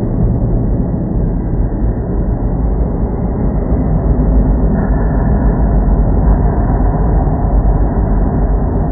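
Dense, steady, muffled rumbling noise from an experimental noise-music track, heaviest in the deep lows, with no melody or beat.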